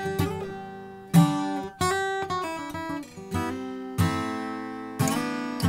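Gibson J-45 Standard acoustic guitar, solid mahogany back and sides with a Sitka spruce top, being played: several strummed chords left to ring out, with a few single notes picked in between.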